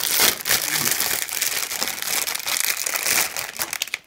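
Clear plastic bag around model-kit runners crinkling as it is handled: a dense crackle that stops abruptly near the end.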